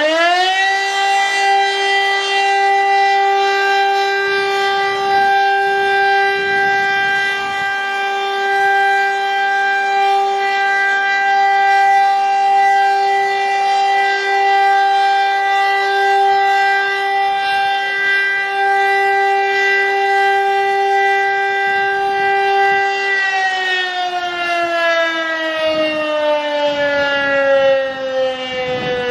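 Rotary siren imitating a KIRKE 400, sounding the fire alarm signal: it finishes winding up about a second in, holds one steady, loud tone for about twenty-two seconds, then winds down, its pitch falling slowly.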